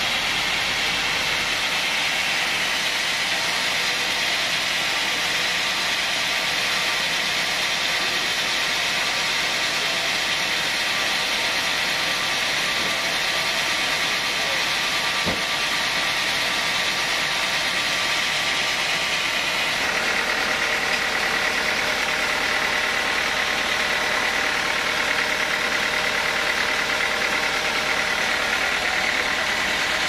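Large vertical band sawmill running steadily. There is a single sharp knock about halfway through and a slight change in tone around two-thirds of the way.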